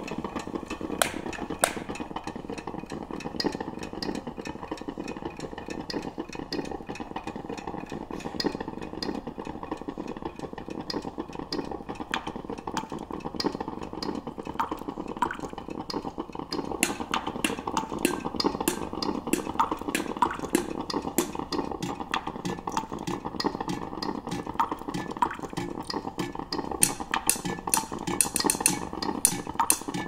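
A stick or spoon stirring and clinking inside a glass coffee carafe: rapid, irregular clinks that grow thicker in the second half, over a steady low rushing noise.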